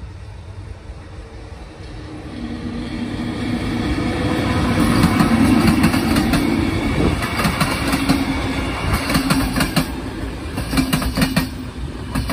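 Passenger train of coaches passing close by. A rolling rumble builds over the first few seconds as it approaches, then runs on with the repeated clatter of wheels knocking over rail joints as the coaches go by.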